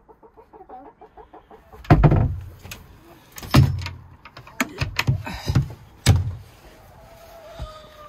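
Chickens clucking, broken by several loud thumps, about two, three and a half and six seconds in, with a quicker run of knocks between.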